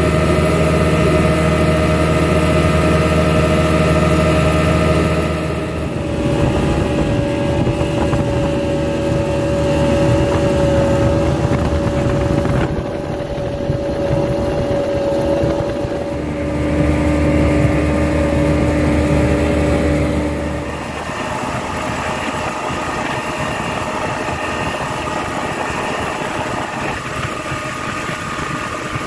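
Speedboat engine running with a steady drone. Its pitch and level shift abruptly a few times.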